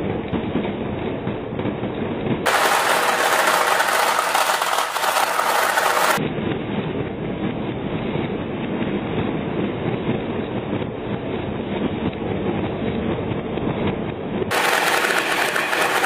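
Many marbles rolling down wavy wooden tracks and clattering into plastic toy dump-truck beds, a steady dense rattling. It turns sharper and brighter twice, from about two and a half to six seconds in and again near the end.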